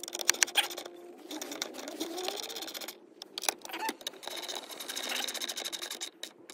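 A fast, even run of mechanical clicks from a tool working the bolts at the shifter base. It stops briefly about three seconds in, then starts again.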